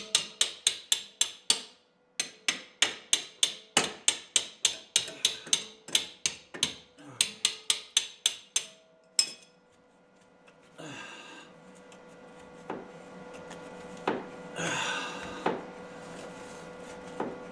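Hammer blows on steel, a fast, even run at about three to four a second, with a brief pause about two seconds in, stopping after about nine seconds; a few lighter knocks and a short scrape follow. The blows are driving a broken, rusted bolt through its hole in the torque rod housing, held back by a crown of rust on the back side.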